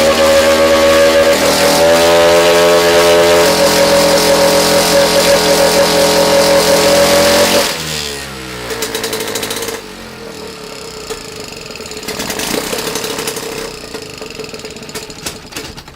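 Modified racing British Seagull two-stroke outboard motor, with a high-compression head and an internal stack exhaust, running hard without a propeller at about three-quarter throttle, around 15,000 RPM. About eight seconds in it is throttled back: the pitch falls, and it runs on more quietly at a lower, steady speed.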